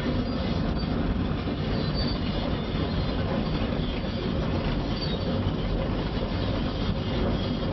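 Quarry excavator's diesel engine running under load and its steel tracks clanking and squealing as the machine travels downhill.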